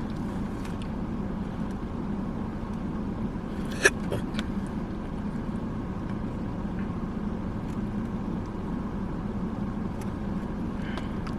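Steady low hum of a car's running engine heard from inside the cabin, with one sharp click about four seconds in and a few faint ticks.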